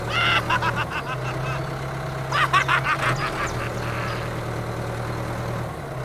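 Steady low engine-like hum of a toy bulldozer-tractor, broken twice by short bursts of a rapidly pulsing pitched sound: once near the start and again about two and a half seconds in.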